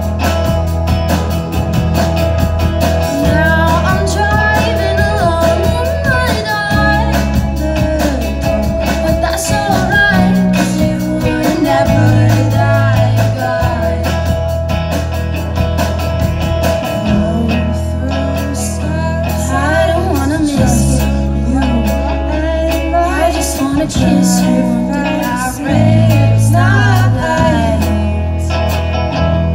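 Live rock band playing a song: a woman singing lead over electric guitar, bass guitar, keyboard and drums, with long held bass notes under a steady drum beat.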